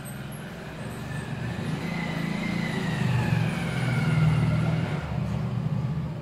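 A motor vehicle passing: its engine sound swells to a peak about four seconds in and then fades, over a steady low hum.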